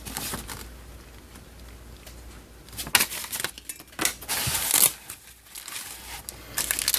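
Packaging being handled: paper and plastic rustling and crinkling in a few short bursts, starting about three seconds in and coming again around four to five seconds and near the end.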